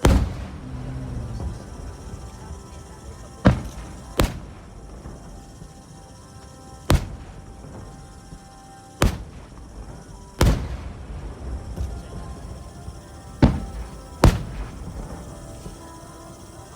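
Aerial firework shells bursting with deep booms, eight of them at uneven intervals, each followed by a short rumbling echo. Music plays underneath.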